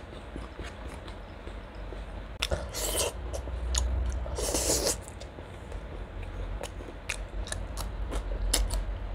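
Close-miked eating of chicken curry by hand: wet chewing with small mouth clicks and lip smacks, and two longer, louder slurping sounds about three and four and a half seconds in.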